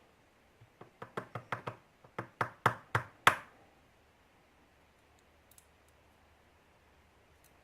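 Steel-bodied pin tumbler lock being knocked repeatedly against a hard surface to shake out a driver pin and its steel spring: about a dozen sharp knocks in two quick runs, growing louder, the last the loudest, then stopping.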